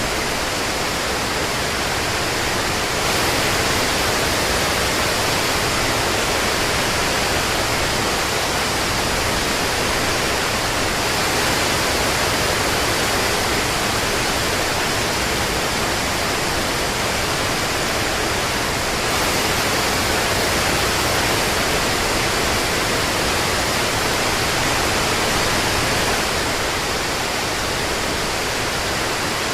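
Steady, dense rain: a continuous hiss of many raindrops with no separate drops or thunder standing out.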